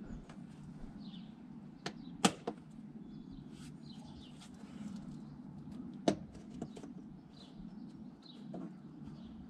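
A few sharp clicks and knocks, the loudest about two seconds in and another about six seconds in, over a low steady hum with faint bird chirps.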